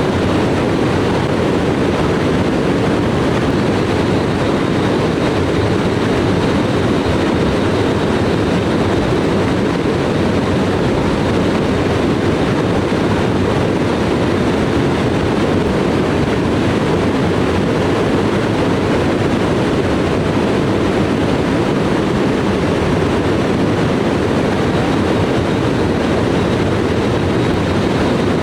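Steady rush of water falling at a waterfall into a stream, an even noise with no change.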